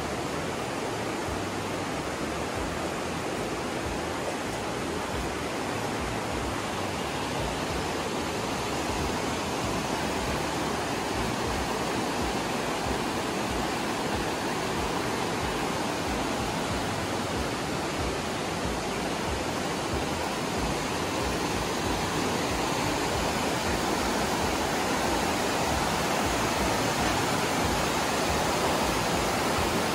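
The Aare river rushing through its narrow rock gorge: a steady sound of fast-flowing water that grows slightly louder toward the end.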